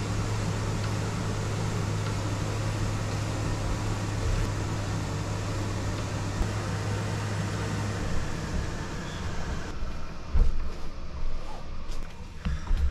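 Indoor exercise bike running as it is pedalled: a steady whirring hum with a low tone. Near the end the hum drops away and a few low thumps follow.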